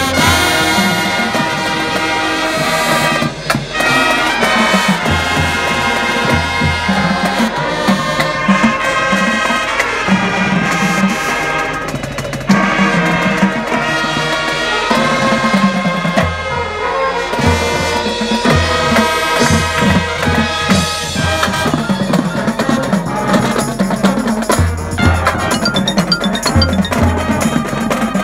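A high school marching band playing its field show: brass holding sustained chords over drumline and bass drum hits, with mallet percussion from the front ensemble.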